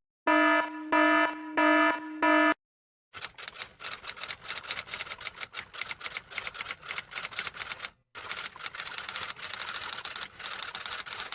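Four short buzzer beeps in quick succession, followed after a brief gap by long runs of rapid typing, fast irregular key clicks.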